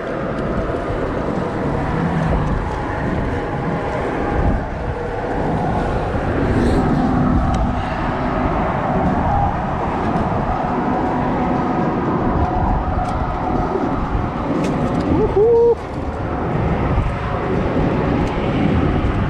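Steady outdoor rumble and hiss, like wind buffeting the microphone, with a few faint clicks and a brief rising squeak about fifteen seconds in.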